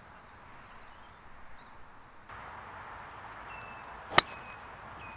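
A single sharp, loud crack of a golf club striking a ball, about four seconds in, over faint outdoor background noise.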